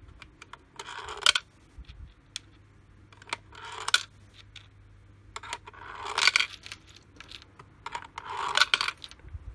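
Steel screws sliding down a plastic gravity sorting box and dropping through its size openings, with metallic clinks and rattles. Four short bursts of rattling come a couple of seconds apart, with scattered single ticks between them.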